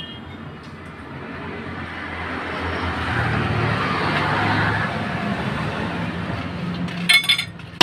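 A motor vehicle passing by: its engine hum and road noise swell up over a few seconds and then fade away. A few sharp clinks near the end.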